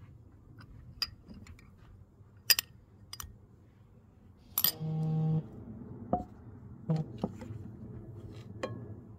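A metal spoon clinking and knocking against a bowl and a nonstick pan as butter is scooped into the pan. The loudest clink comes about four and a half seconds in and is followed by a short, steady squeak, then a few lighter knocks.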